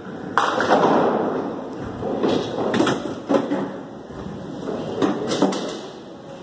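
Bowling alley clatter of balls and pins: a sudden burst of noise about half a second in, then scattered sharp knocks.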